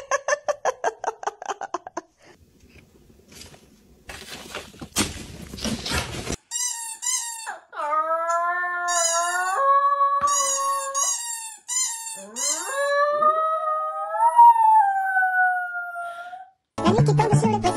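Two small curly-coated dogs howling together in long, overlapping howls that slide up and down in pitch. The howling starts about a third of the way in and cuts off just before the end.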